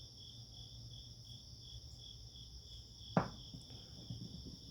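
Crickets chirping steadily in a fast, even pulsing trill, with one sharp knock about three seconds in, like a small metal part set down on a hard surface.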